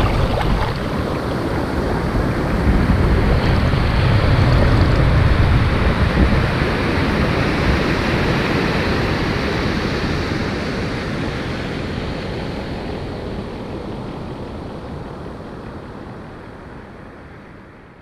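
Ocean surf breaking and washing onto a sandy beach, a steady rushing wash that swells a few seconds in and then fades out gradually.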